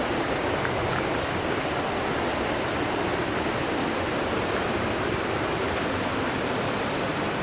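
Steady, even rush of falling and flowing water.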